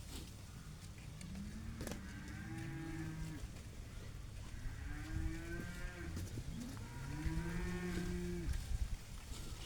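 A cow mooing three times, each call long and drawn out, rising and then falling in pitch, the second and third close together in the latter half.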